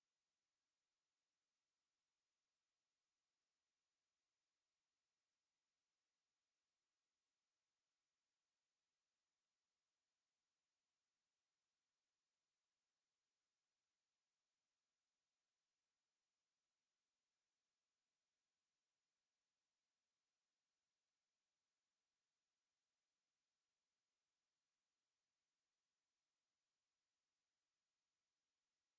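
A pure 11132 Hz sine-wave test tone, a single high-pitched steady whine held at constant level.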